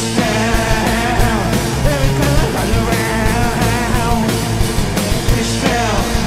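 Live rock band playing: a male lead vocal sung over two electric guitars and a drum kit.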